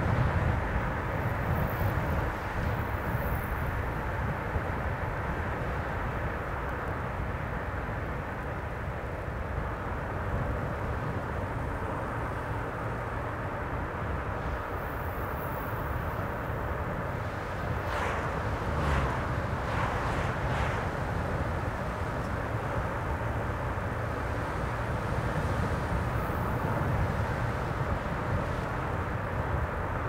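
Steady road noise of a car driving on a highway: tyre rumble and low engine hum. A little past halfway there are a few brief louder rushes.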